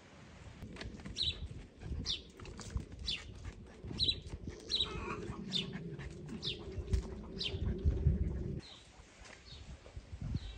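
A small bird chirping repeatedly, short falling chirps about twice a second, over a low rumble with scattered knocks that stops suddenly near the end.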